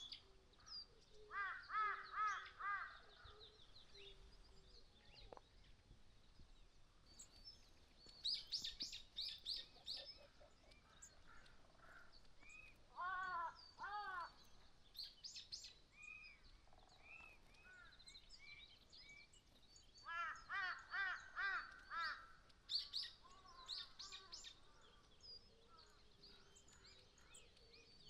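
Birds calling outdoors: several bursts of short, repeated call notes in quick series, some lower-pitched and some higher, with fainter calls in between.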